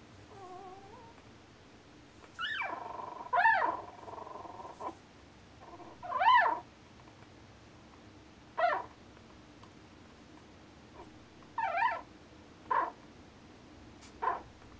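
Newborn Norwegian Elkhound puppies squeaking and whimpering in their sleep while dreaming: about ten short, high, arching squeaks at irregular intervals, the loudest about three and six seconds in.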